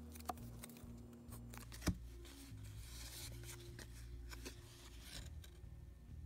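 Baseball cards handled by hand: cards sliding and rubbing against each other as they are moved from one hand to the other and flipped over, with a few light clicks, the sharpest about two seconds in.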